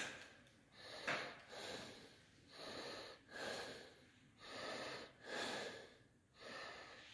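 Breathing close to a phone's microphone: soft, even breaths in and out, roughly one a second, with a sharp click at the very start.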